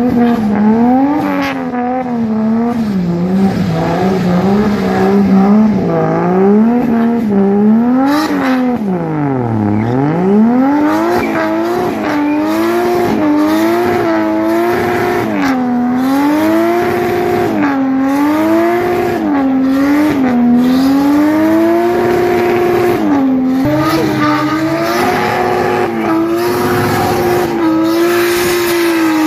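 Car engine revving hard over and over while the sedan drifts on a wet track, its pitch swinging up and down with each throttle stab as the rear wheels spin. Around ten seconds in the revs fall sharply and climb back, and in the last several seconds they are held high and fairly steady through a burnout.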